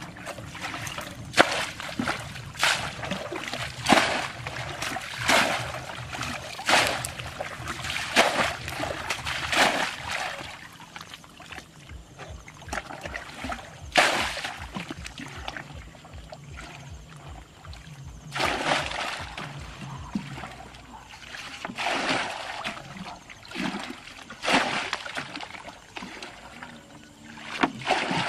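Muddy ditch water being bailed out with a plastic bucket: each scoop and throw over the bank makes a splash, about one every second and a half for the first ten seconds, then fewer and more spread out.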